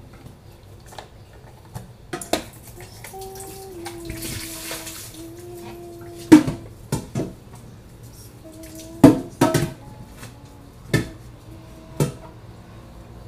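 Dishwashing by hand at a stainless-steel sink: scattered knocks and clatters of dishes and a plastic bottle against the steel, the loudest a little past halfway. A tap runs briefly about four seconds in.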